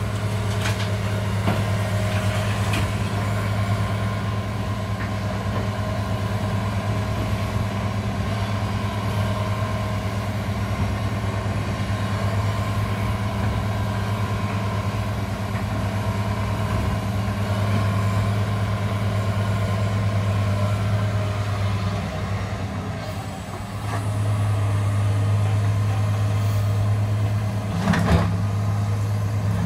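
New Holland E245 crawler excavator's diesel engine running steadily as it works, with rubble clattering about a second in as the bucket empties over the truck. The engine eases off a little over twenty seconds in and picks up again, and near the end there is a sharp knock as the bucket strikes the rubble pile.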